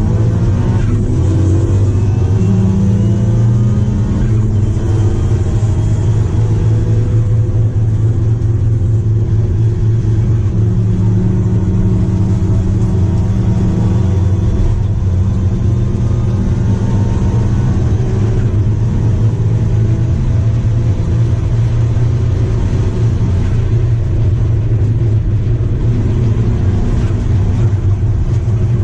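Daihatsu Charade GTti's 993cc turbocharged three-cylinder engine under hard acceleration, heard from inside the race car's cabin. It rises in pitch in steps through the gears in the first few seconds, then holds high revs at speed.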